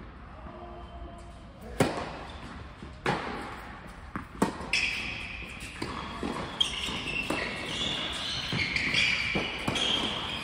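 Tennis balls struck by rackets and bouncing on an indoor hard court through a rally, each hit a sharp pop that echoes in the large hall, the loudest about two seconds in. From about halfway on, high squeaks of shoes on the court.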